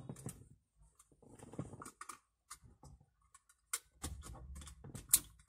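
Hard plastic clicks and rattling as a Honda CR-V power window switch is handled and its wiring connector is pushed into the door harness, with a sharp click near the end as the connector latches.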